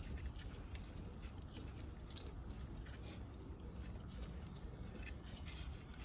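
Faint, scattered clicks and taps of hand tools working the steering box bolts, over a low steady hum, with one sharper click about two seconds in.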